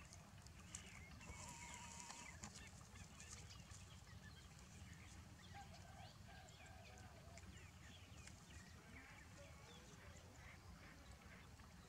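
Near silence: faint outdoor ambience, a low steady rumble with scattered faint high chirps and a few soft clicks in the first few seconds.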